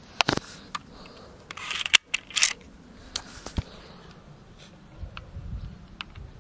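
Sharp plastic clicks and snaps from an HFC HA117 spring-powered airsoft pistol being cocked and fired, several in the first few seconds with the loudest about two seconds in.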